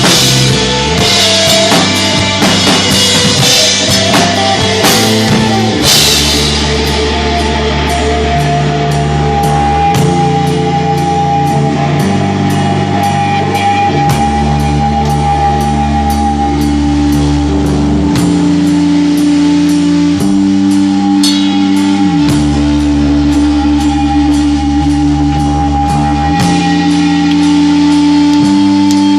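Stoner rock band playing live. Drums and crashing cymbals are prominent for the first six seconds or so, then the band settles into slow, heavy guitar and bass chords that change every few seconds under a long held guitar note.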